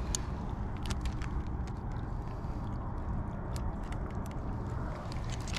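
Scattered light clicks and crinkles from live blue crabs being pulled about in a plastic bag with metal tongs, over a steady low rumble.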